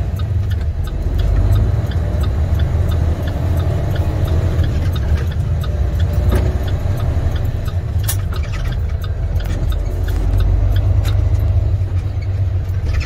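International semi truck's MaxxForce 13 diesel engine running as the truck drives slowly, heard inside the cab: a steady low rumble with scattered light clicks and rattles.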